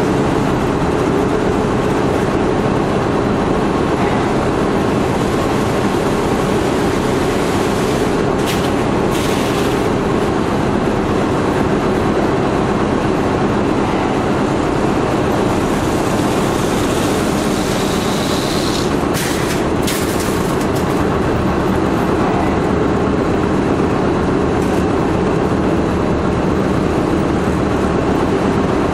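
Machinery of a nonwoven geotextile production line, carding machine and web lapper, running steadily: a loud, even mechanical clatter and hum, with a few brief hisses.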